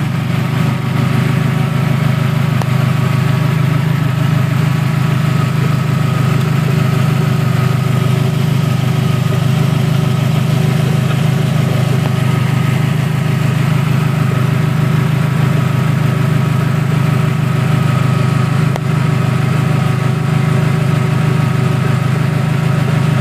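Toyota Camry's 2.2-litre four-cylinder engine, fitted with a heat-wrapped exhaust header, idling steadily and loudly at an even, unchanging speed.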